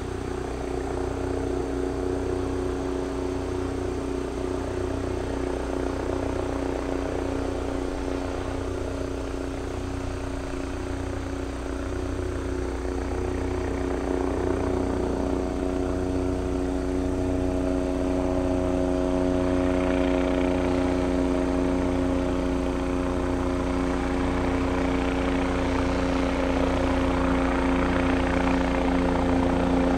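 Bell 407GXi helicopter coming in to land: a steady turbine whine over the main-rotor beat, growing gradually louder as it approaches. The whine strengthens about halfway through, and rushing rotor-wash noise builds in the last third.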